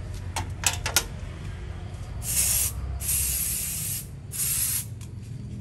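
A few light metal clinks in the first second, then three short hissing bursts of aerosol spray, the middle one about a second long.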